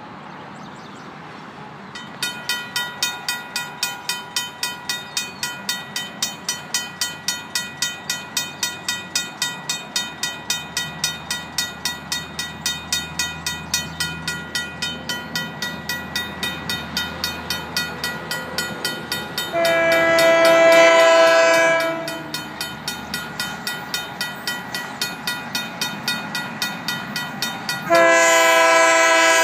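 Mechanical grade-crossing bell (RACO) starts ringing about two seconds in, about three strokes a second, as the crossing signals activate. A Union Pacific GP38-2 diesel locomotive's air horn sounds one blast of a few seconds about two-thirds of the way through, and starts a second, louder blast near the end.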